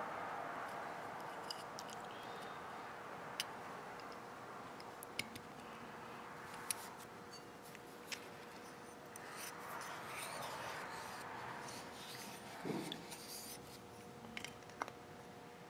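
Small carburetor parts being handled and reassembled by hand on a workbench: scattered light clicks and taps of metal and plastic parts, with soft rubbing and shuffling between them. A faint steady hum runs underneath.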